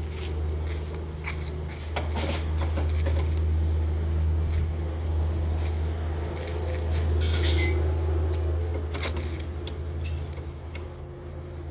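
A steady low machine hum runs throughout, with scattered metal clinks and knocks from hand work on the car's rear body and chain, and a short scraping rasp about seven seconds in.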